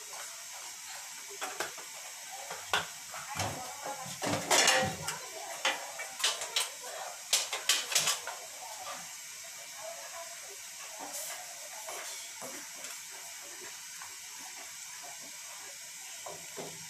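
Steady hiss of a gas stove burner heating a pot of urad dal batter, with a run of sharp clicks and clatters between about one and eight seconds in, loudest around the middle.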